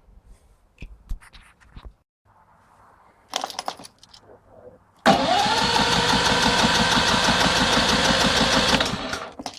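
Fuji Micro XG-SF3700 inverter generator's small four-stroke engine catching about five seconds in, its pitch rising briefly and then running steadily for about four seconds before dying away. This is a first start out of the box, which the owner puts down to the fuel system needing more priming.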